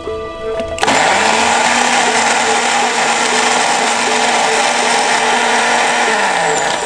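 Electric blender starting up about a second in, running steadily as it blends mango, yogurt and ice into lassi, then slowing down near the end.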